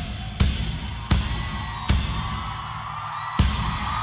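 Live drum kit: four widely spaced accented hits of bass drum and cymbal, each left to ring out. A crowd cheering swells up under them in the second half.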